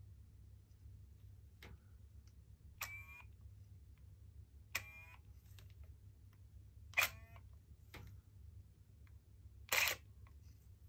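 Nikon D90 DSLR's aperture motor whirring briefly four times, about two seconds apart, with the last burst the loudest. The mirror stays stuck while the motor runs, most likely because the motor's plastic drive gear is loose or cracked.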